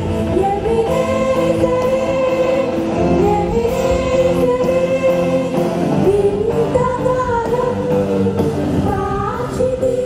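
A church congregation singing a worship song together, many voices carrying one melody without a break.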